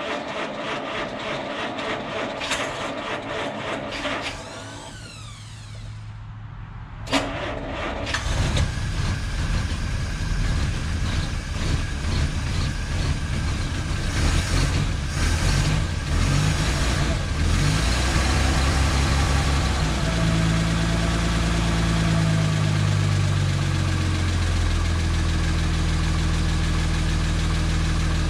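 1951 Studebaker Champion's flathead straight-six cold-started through a makeshift exhaust with a Corolla muffler. The starter cranks for about four seconds and stops. After a click the engine catches about eight seconds in, runs unevenly, then settles into a steady idle that almost sounds like a normal car.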